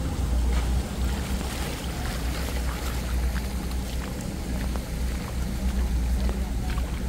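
An engine running steadily: a deep, even rumble with a faint hum above it, and scattered light clicks.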